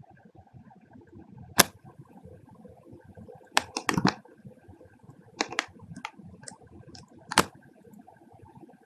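Computer mouse clicking while selecting edges and working a dialog in CAE software. There is a single click, then a quick run of four, then several scattered clicks, over faint steady room noise.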